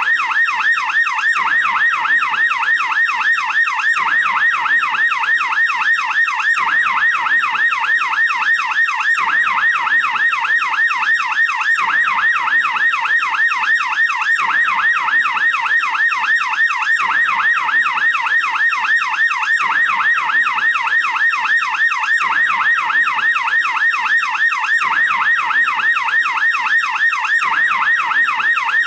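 American police car siren in yelp mode: a steady, rapid up-and-down wail repeating about three times a second without a break.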